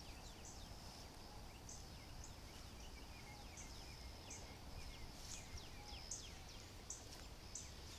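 Birds chirping faintly, many quick falling chirps and short high notes repeating all through.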